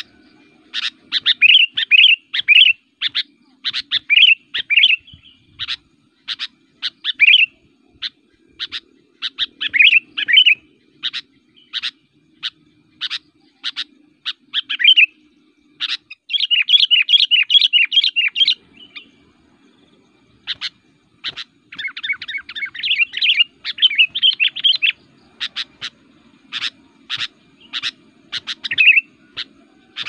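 Sooty-headed bulbul calling incessantly in a fired-up, aggressive state: a rapid run of short sharp chirps mixed with bubbly warbled phrases. Past the halfway point come two longer stretches of dense chattering with a brief pause between them.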